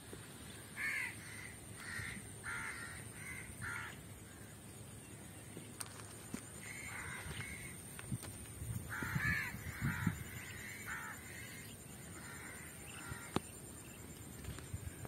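Crows cawing, faint: several runs of short harsh calls, a few calls each, with pauses of a couple of seconds between runs.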